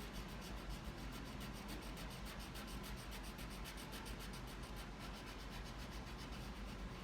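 Crayon scribbling on paper, colouring in a shape with quick back-and-forth strokes, several a second.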